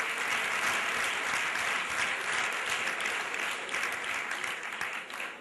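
Audience applauding in a large hall, a steady run of clapping that fades near the end.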